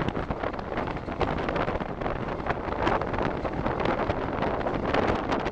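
Historic train running, heard from an open carriage window, with wind buffeting the microphone.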